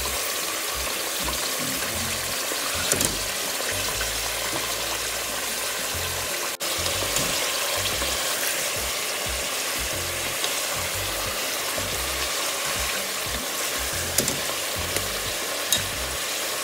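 Mutton pieces sizzling steadily as they fry in hot oil in a pressure cooker, with a few sharp knocks of a wooden spatula stirring them.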